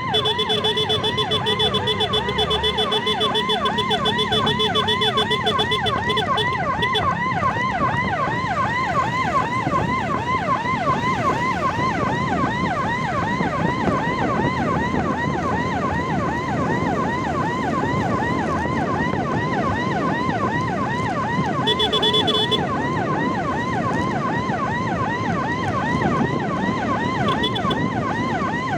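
Electronic emergency siren in a fast yelp, its pitch sweeping up and down about three to four times a second without a break. A steady tone sounds over it for the first six seconds or so and again briefly about 22 seconds in, over low road noise.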